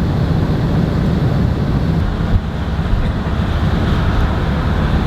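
Land Rover Defender driving at road speed: a steady low engine and road rumble with wind buffeting the microphone.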